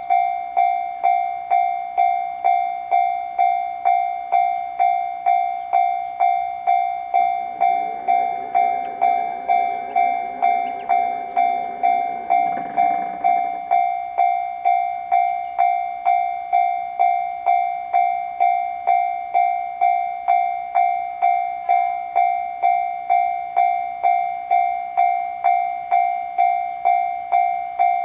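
Japanese railroad crossing warning bell ringing its steady 'kan-kan' alarm, a little under two strikes a second, with a lingering ringing tone between strikes. A lower hum is heard under it from about eight to thirteen seconds in and stops abruptly.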